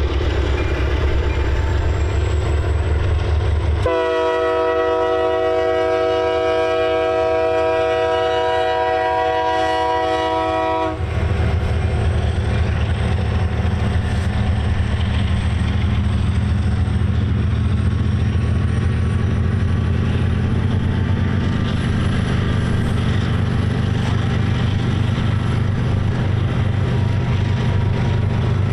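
Diesel freight locomotives led by an EMD SD70M throttling up, a steady low engine drone as the train pulls out of a slow order. About four seconds in, the locomotive horn sounds one long chord of several notes for about seven seconds, and then the engine drone carries on.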